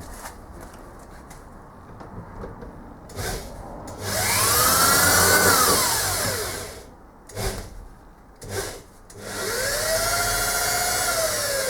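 Handheld power drill run twice for a few seconds each, its motor whine rising as it spins up and falling away as it slows, with a few short knocks between the runs.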